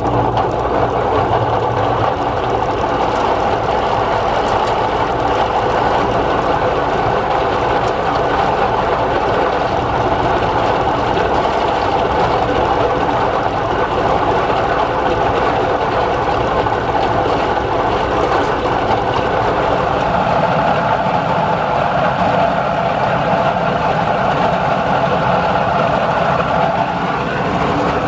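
Air conditioner condenser fan motor running with a loud, steady, rough mechanical noise from its worn, dry bearings. Its tone shifts about twenty seconds in.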